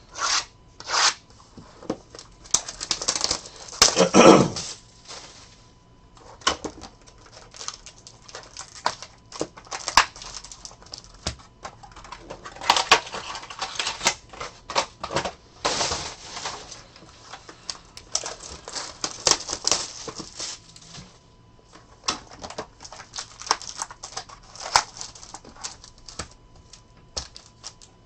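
Sealed trading-card packaging being opened by hand: plastic wrapping crinkling and tearing, with a longer, louder tear about three to five seconds in and many small crackles and clicks of cardboard and cards being handled.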